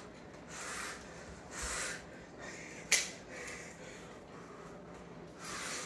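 Close, noisy breaths through the nose, coming roughly once a second, with one sharp click about three seconds in as the Elmo toy's plastic battery door is worked open.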